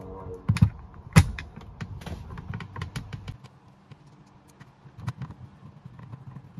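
Sharp plastic clicks and knocks as a rear-view mirror is fitted onto its windshield mount, the loudest knock about a second in, then fainter ticks as the mount bolt is turned with a T20 Torx driver.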